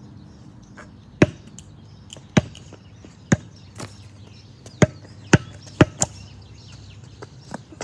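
A basketball bouncing on an asphalt driveway: about seven sharp, separate bounces, the first few roughly a second apart and then coming closer together.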